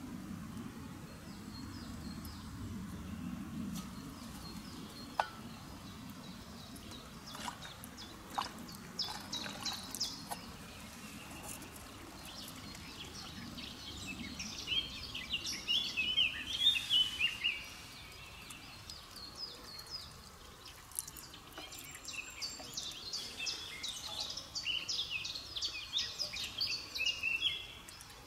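Songbirds singing in repeated chirping phrases, loudest about halfway through and again near the end. Under them, faint splashing of spring water as a metal cup is dipped into the trickle and poured into a water-filter bag, with a few light clicks early on.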